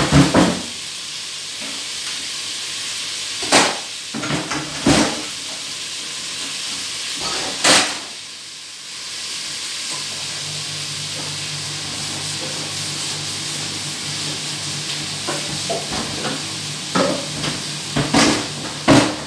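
Chopped tomato and spices sizzling as they sauté in a frying pan, a steady hiss broken now and then by sharp knocks of utensils against the pan. A low steady hum joins about halfway through.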